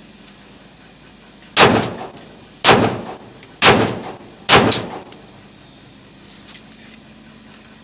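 Four single shots from a locally made Beretta 92FS-pattern pistol in .30 bore (7.62×25 mm Tokarev), fired in single (semi-automatic) mode about a second apart, each with a short echoing tail.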